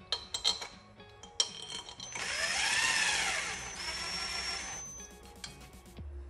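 Cordless drill running cylinder head bolts down hand tight on a small OHV mower engine, its motor whine rising and then falling over about three seconds. A few light metal clinks come before and after it.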